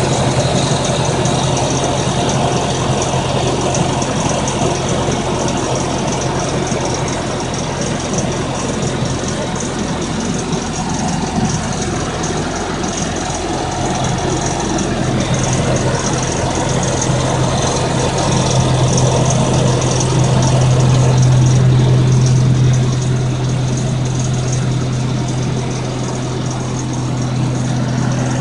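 Toyota engine idling steadily, with a faint high hiss or whine over its low hum, recorded to show a noise at idle that the owner is concerned about. It gets slightly louder for a few seconds past the middle.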